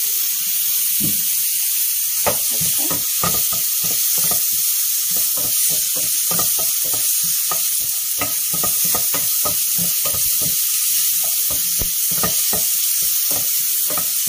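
Minced garlic and onion sizzling in hot oil in a nonstick pan. From about two seconds in, a wooden spatula scrapes through them in quick repeated strokes, about three a second.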